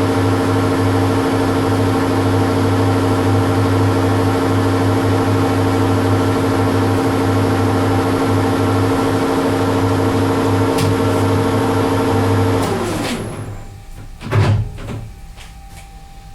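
Metal lathe running steadily while turning down bar stock. Near the end its motor is switched off and spins down, falling in pitch, followed by a single thump.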